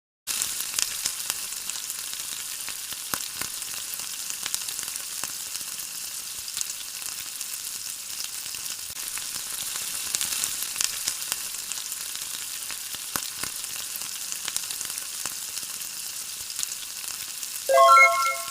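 Roti frying in oil, a steady sizzle with scattered small crackles. A few plucked music notes come in just before the end.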